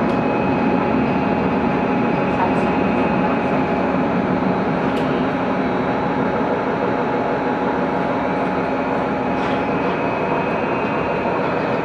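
Aizu Railway AT500 diesel railcar running, heard from inside the carriage: a steady rumble of engine and wheels on rail, with thin steady whines above it and a couple of faint clicks.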